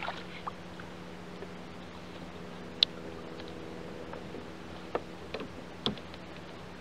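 Fishing tackle being handled on a plastic kayak as a small fish is lifted aboard: a few sharp, separate clicks and knocks, the sharpest about three seconds in, over a steady faint hum.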